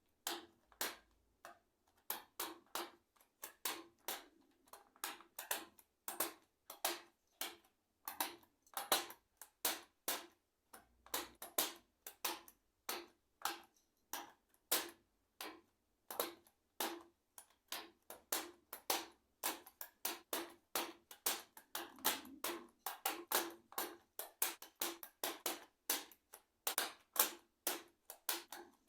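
Keys of a restored ICL membrane keyboard clicking as they are pressed in quick, irregular succession, about two to four clicks a second, like typing.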